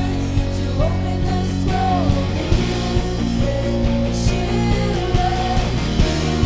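Live worship band playing a full-band rock passage: sustained guitar and keyboard chords over bass and a steady drum beat, with a wavering melody line on top.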